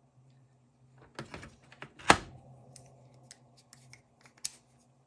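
Klein impact sockets and adapters being handled and fitted together by hand: a scatter of light metal clicks and taps, with one sharp knock about two seconds in.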